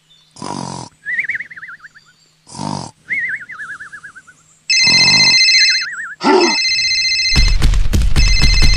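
Cartoon snoring: three loud snores about two seconds apart, each followed by a wavering whistle. About five seconds in, a phone ringtone starts beeping and keeps going, and from about seven seconds a loud rattling clatter joins it.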